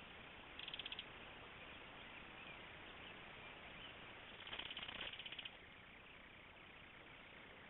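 Belted kingfisher giving its dry rattling call twice: a short rattle about half a second in and a longer one of about a second just past the middle, over a steady faint hiss.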